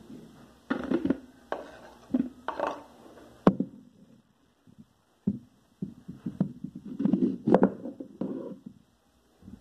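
Kitchen knife knocking on a wooden cutting board: scattered knocks and one sharp tap in the first part, then a quick run of chopping strokes through an onion near the end.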